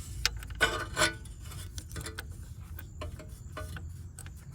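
Scattered small metallic clicks and scrapes of a differential fill plug being fumbled by hand into the hard-to-reach fill hole under a 2006 Honda CR-V, with a brief louder rustle about a second in, over a low steady rumble.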